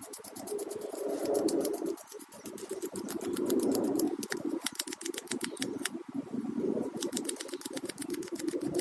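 Fine-grit sandpaper (1000 grit or above) rubbed back and forth in quick, even strokes over a rounded plastic model-kit part, clearing off sanding scratches.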